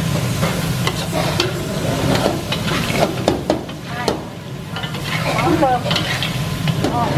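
Metal spatula scraping and tossing chicken and cashew nuts in a steel wok, the food sizzling in hot oil, with repeated short scrapes and clinks of metal on metal.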